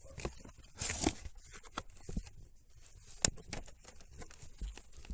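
Cardboard carton of canned cat food being handled, its torn flap pushed back: cardboard rustling and scraping, loudest about a second in, with a string of small clicks and knocks and one sharp click a little after three seconds.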